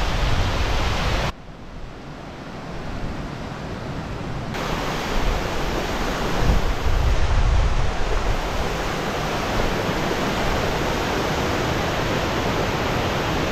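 Rushing water of Cautley Spout's cascades tumbling down a rocky gully, with gusts of wind buffeting the microphone. The sound drops suddenly about a second in, then builds back up to a steady rush.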